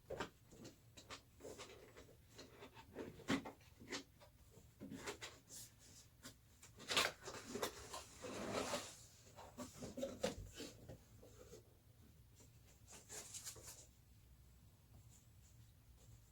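Graphics card retail box and its packaging being opened and handled: scattered clicks, taps and rustling, with a longer scraping rustle around seven to nine seconds in.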